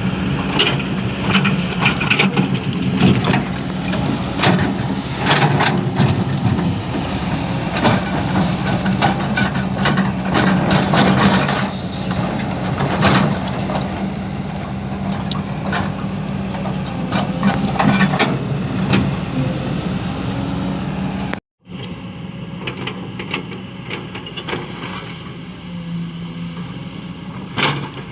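Excavator's diesel engine running steadily, with frequent sharp clanks and knocks. The sound cuts out for a moment about three-quarters of the way through and resumes quieter, with fewer knocks.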